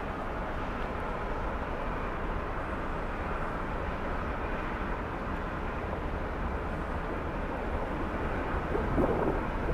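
Steady low drone of the ro-pax ferry Mecklenburg-Vorpommern's engines and ventilation as the ship passes close by. A bird starts calling near the end.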